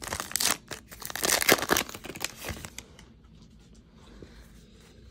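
Plastic foil wrapper of a baseball card pack being torn open by hand, a loud crinkling and tearing for about the first three seconds. It then drops to faint rustling as the cards are handled.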